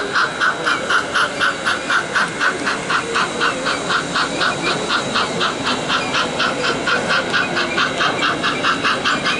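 Model steam locomotive chuffing steadily, about four to five hissing chuffs a second, as it pulls its coaches along.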